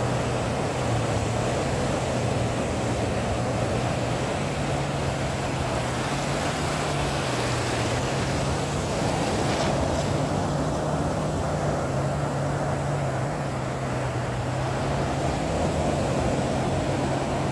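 Steady sea noise, with the low, even drone of an engine running under it that wavers slightly in pitch.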